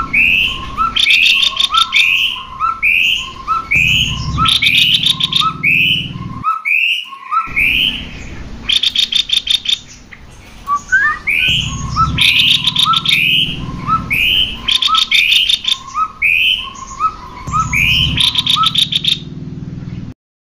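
Cucak kopi song, male and female: short swooping whistled notes repeated about twice a second. Every few seconds bursts of fast, dense chattering trills break in. There is a brief break a little before halfway, and the song cuts off abruptly just before the end.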